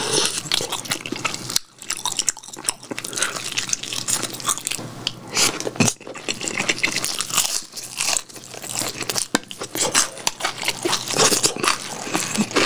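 Close-miked eating: biting into and chewing crunchy fried food, a dense, irregular run of crunches, crackles and wet mouth sounds.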